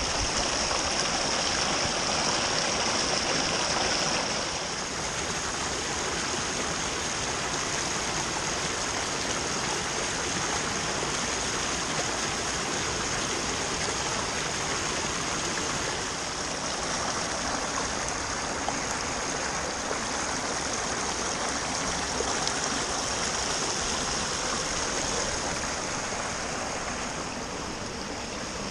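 River water pouring over a low weir, a steady rush of white water, a little louder for the first few seconds.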